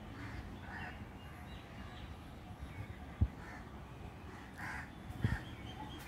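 Alexandrine parakeet giving short calls, about eight times at irregular intervals. Two low thumps come through, the louder about three seconds in and another near the end.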